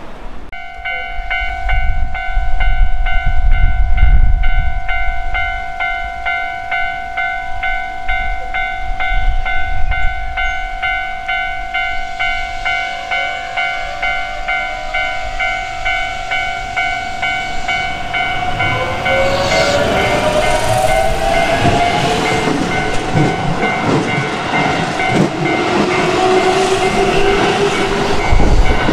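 A Keihan train rumbles past on the rails in the first few seconds while a pulsing electronic warning tone sounds, steady, until about twenty seconds in. A Keihan 7000 series electric train then pulls away, its traction motors whining upward in pitch as it accelerates.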